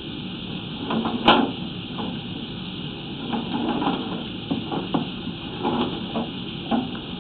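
A sewer inspection camera being pushed along a pipe: irregular knocks and clatter, one sharp knock about a second in, over a steady hiss.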